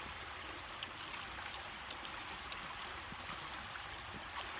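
Shallow creek running over rocks: a steady rush of water, with a few faint clicks.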